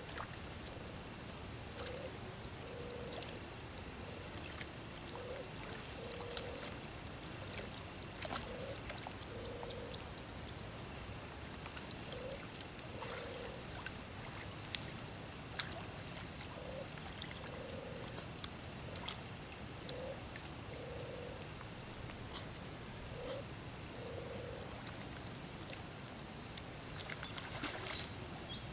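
Outdoor ambience by the water: an animal call of two low notes, a short one then a longer one, repeating about every two seconds, over a steady high-pitched whine. A quick run of ticks comes about eight to ten seconds in, and water sloshes faintly around a wading person.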